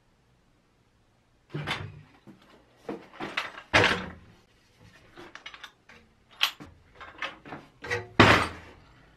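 Loose rusty metal parts of a dismantled balance clattering and clanking in a metal tray as it is handled and set down on the workbench. The irregular knocks start about a second and a half in, with the heaviest clanks about four and eight seconds in.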